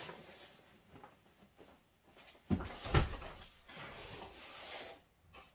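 A guitar's outer box being handled and opened: two knocks about two and a half and three seconds in, then sliding and rustling as the packaging is worked open.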